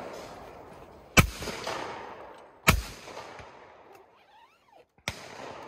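Over-and-under shotgun firing two shots about a second and a half apart at a pair of clay targets, each shot ringing out and fading. A fainter sharp crack comes near the end.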